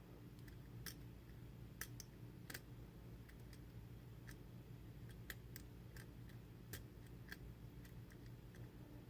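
Faint, irregular clicks of a steel lock-pick hook working the pins and tight warding inside a Winkhaus mortise cylinder, over a low steady hum.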